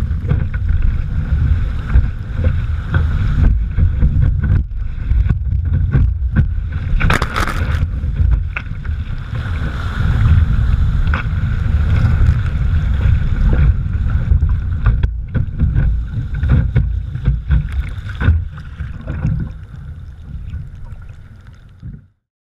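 Wind buffeting a deck-mounted camera microphone over rushing, splashing water as an NDK Romany sea kayak surfs through breaking waves. There are louder splashes near the start and about seven seconds in, and the sound fades away near the end.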